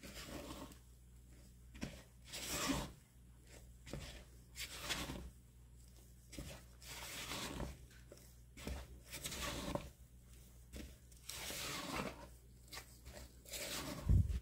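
Spatula folding cocoa into sponge-cake batter in a plastic mixing bowl: a dozen or so short scraping strokes, about one a second, with a knock near the end.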